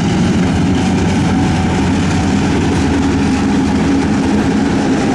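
Canadian National diesel-electric freight locomotives running past, their engines a loud, steady drone.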